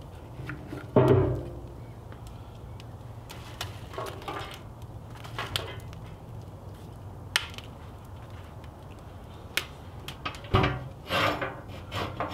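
Pecan and cherry logs burning in an offset smoker's steel firebox, crackling and popping over a low steady rumble, with a heavy thump about a second in. Near the end come a cluster of knocks and scraping as the steel firebox door is shut and its air intake worked.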